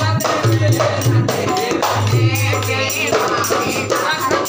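Dholak played by hand in an even beat, with voices singing over it.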